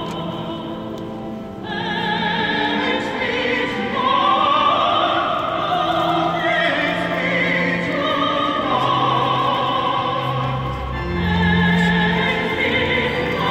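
Sacred classical music: voices singing long held notes with vibrato over instrumental accompaniment, with deeper sustained notes joining about three quarters of the way through.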